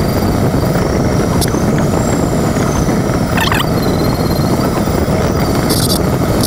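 Steady rushing of air around an LS4B glider's canopy and cockpit in flight, with no engine. A faint high tone slowly rises and falls over it, and a brief chirp sounds about halfway through.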